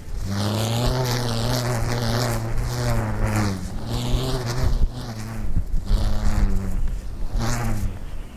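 Prism Quantum stunt kite and its 100-foot ribbon tail buzzing in the wind as the kite sweeps through the air. The hum wavers in pitch, is strongest in the first few seconds, and comes back in shorter surges about four and seven and a half seconds in.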